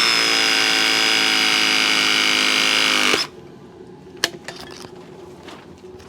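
Ridgid RP 340 battery press tool running a press cycle on a copper Viega press fitting: a steady motor whine that cuts off suddenly about three seconds in, followed by a few light clicks.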